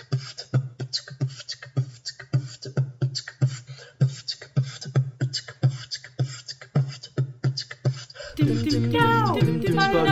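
A steady percussive beat, low thumps about twice a second with sharper high hits between them. About eight seconds in, it gives way to music with singing.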